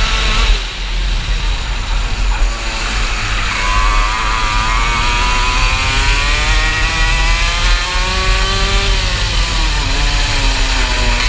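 Onboard sound of a 125cc KF two-stroke kart engine at racing revs. It drops away about half a second in as the driver lifts off for a corner, then climbs steadily in pitch for several seconds under full throttle, eases briefly near the end and pulls up again. A steady low rumble runs underneath.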